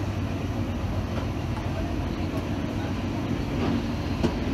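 A 1980s passenger train running along the line, heard from inside the carriage: a steady low rumble of the wheels and running gear, with a single sharp knock about four seconds in.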